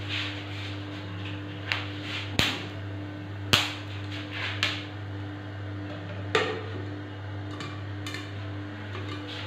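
Popcorn kernels starting to pop in hot oil and salt in a pan: about half a dozen scattered sharp pops at irregular intervals, the loudest about three and a half seconds in.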